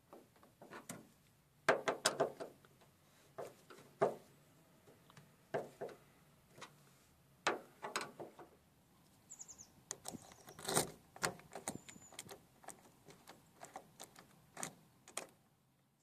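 VW T4 Transporter door latch and lock linkage being worked by hand with a screwdriver: a long run of irregular metallic clicks and clacks, some in quick clusters, as the latch mechanism is cycled.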